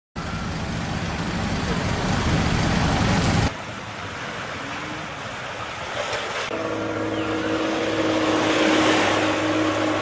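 Road traffic with a low wind rumble on the microphone, cut off suddenly about three and a half seconds in. Then the softer wash of small waves on a sandy beach, and from about six and a half seconds a steady engine hum.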